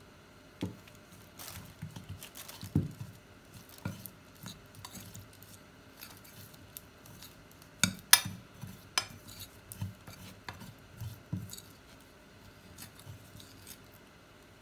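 Metal spoon stirring a thick cornstarch-and-water mix (oobleck) in a glass bowl, with irregular clinks and scrapes against the glass; the sharpest clinks come about eight seconds in.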